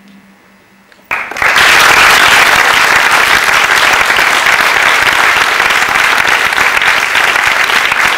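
Theatre audience applauding: the clapping starts suddenly about a second in and then goes on steadily. Before it, a faint low hum.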